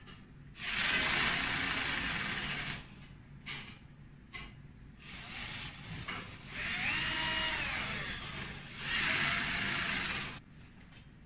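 Cordless drill/driver running in several bursts of a second or two, fastening a mount to a slotted steel angle stand; in the middle one run the motor's whine rises and then falls in pitch.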